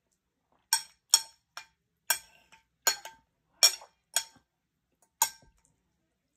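Cutlery clinking against a dish while eating: about eight sharp, ringing taps at an uneven pace.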